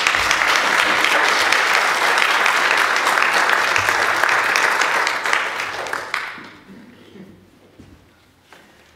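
Audience applauding, many hands clapping steadily for about six seconds, then dying away.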